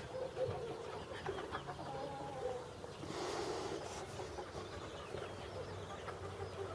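Faint wavering animal calls, with a brief hiss about three seconds in.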